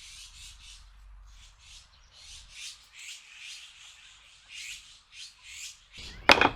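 Repeated short scratchy strokes of a hand woodworking tool worked back and forth on wood, about two to three a second, with a sharp knock near the end.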